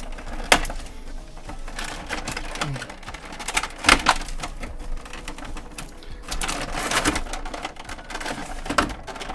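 Clear plastic packaging crinkling and crackling as it is cut with a hobby knife and pulled off a toy figure, with sharp clicks and snaps; the loudest snaps come about half a second in and about four seconds in.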